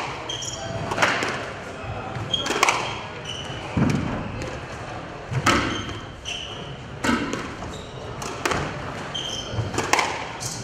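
Squash rally: the ball is struck by rackets and hits the court walls about every second and a half, each hit ringing in the hall. Short squeaks of court shoes on the wooden floor come between the hits.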